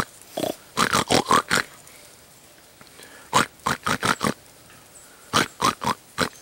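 Wild hogs grunting: three quick runs of short grunts, four to six in each run, a second or two apart.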